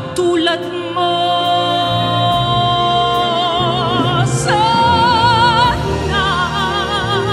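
Female singer holding long notes with wide vibrato over a live symphony orchestra.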